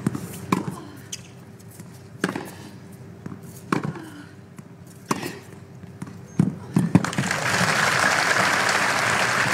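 Tennis rally: rackets strike the ball about every one and a half seconds, each a sharp crack, with the last shots coming quicker. About seven seconds in the point ends and the crowd applauds.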